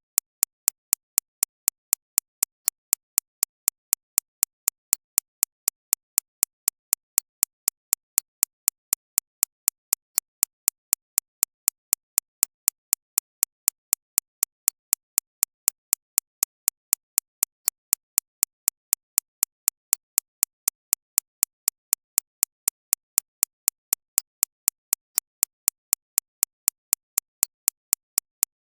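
Digitally synthesized recreation of a shockwave therapy (ESWT) machine's impact pulses: sharp, evenly spaced clicks about four a second, strongest in the high treble.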